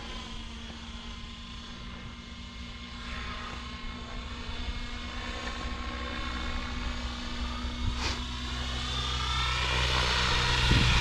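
Align T-Rex 650X electric RC helicopter in flight, its rotor and motor whirring steadily and growing louder toward the end.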